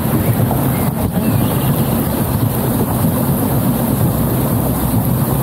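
Tour boat's engine running steadily under way, a continuous low hum.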